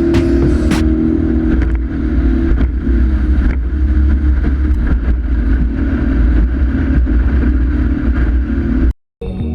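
Motorboat engine running steadily while under way, with a constant low rumble, cutting off suddenly near the end.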